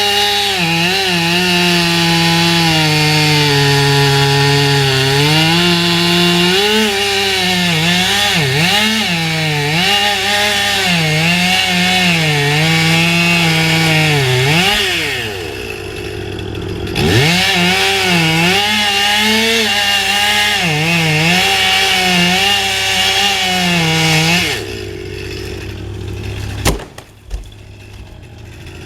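Two-stroke chainsaw cutting wood at full throttle, its engine pitch dipping and recovering as the chain bites. The engine drops back briefly about halfway through, then revs up again and cuts off near the end, followed by a couple of sharp knocks.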